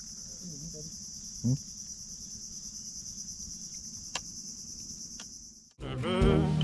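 Steady high-pitched drone of an insect chorus from the mangroves, with one dull knock about a second and a half in. It cuts off suddenly near the end as guitar music starts.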